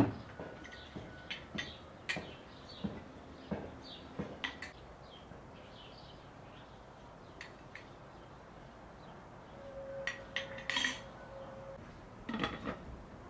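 Porcelain teapot and lids and a tea canister handled on a wooden table: a scattering of light clinks and knocks, busiest at the start and again near the end. Small birds chirp in the background.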